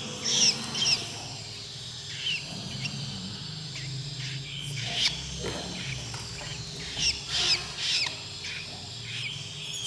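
Long-tailed shrike (cendet) nestlings giving short, high, squeaky begging calls while being hand-fed, scattered singly and in small clusters, with the most around the start and again about seven to eight seconds in.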